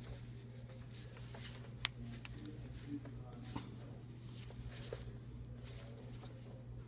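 Nylon paracord rustling and sliding through the fingers as a diamond knot is worked tight, with a few faint clicks, one sharper about two seconds in, over a steady low hum.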